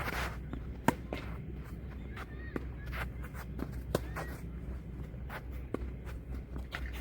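Tennis rally on a court: sharp pops of the ball struck and bouncing, the loudest about a second in, with players' footsteps and short shoe squeaks on the court surface.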